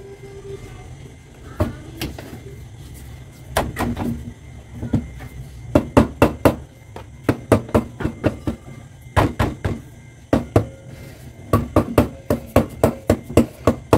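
Rubber mallet striking a scooter's rear alloy wheel in runs of quick blows, about three or four a second, driving the wheel hub onto its splined shaft. The blows are sparse at first and come faster and more steadily toward the end.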